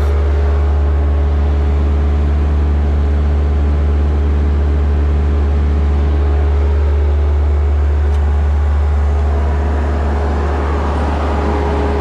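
John Deere 325G compact track loader's diesel engine running steadily, with a constant low hum and no revving. It is running with its cleaned diesel particulate filter refitted, the reduced-throttle fault cleared.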